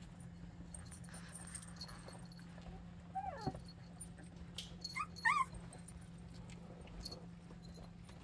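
Three-week-old Samoyed puppies whimpering: a short falling whine about three seconds in, then two quick higher yips about two seconds later.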